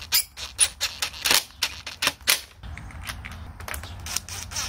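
Cordless impact driver driving down the bolts that hold the fan shroud to a radiator, in short bursts: a string of sharp clacks several times a second, louder in the first half and fainter toward the end.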